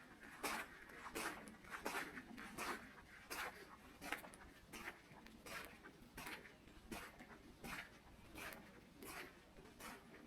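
Footsteps of a person walking a forest path at a steady, unhurried pace, about three soft steps every two seconds.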